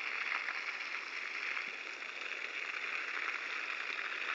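Water rushing steadily: a continuous even hiss of flowing water.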